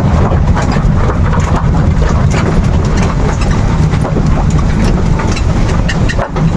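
Bus running on the road, heard from aboard: a steady low engine rumble with constant rattling and clatter.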